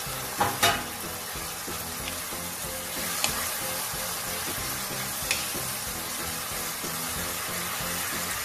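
Chicken and bell pepper strips sizzling steadily in a nonstick wok, with a wooden spatula knocking and scraping against the pan, twice about half a second in and once or twice later.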